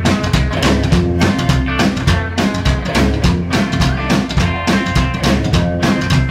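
Live band playing an instrumental passage: plucked upright double bass, electric guitar and a drum kit keeping a steady beat.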